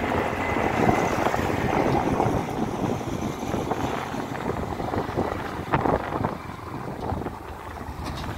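Wind buffeting the microphone on a moving motorbike, with road and engine noise underneath.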